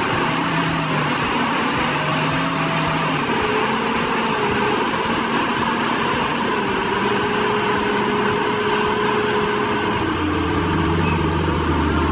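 Heavy machine's engine running steadily under work, with a dense mechanical noise and a faint whine that drifts slightly in pitch.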